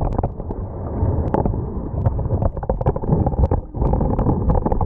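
Underwater sound picked up by a camera submerged in a shallow tide pool: a muffled, churning low rumble of moving water, with many sharp clicks and ticks scattered throughout.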